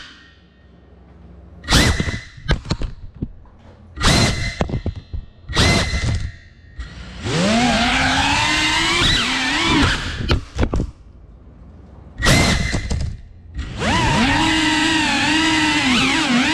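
3.5-inch cinewhoop FPV quadcopter's brushless motors and propellers whining. It comes first in several short bursts with quiet gaps between, then in longer stretches whose pitch rises and falls with the throttle.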